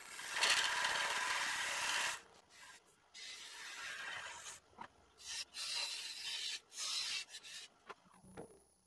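Hand-held turning tool cutting into spinning sycamore at the base of a vase on a wood lathe, a hissing scrape. One long cut runs for the first two seconds, then several shorter cuts follow before it stops near the end.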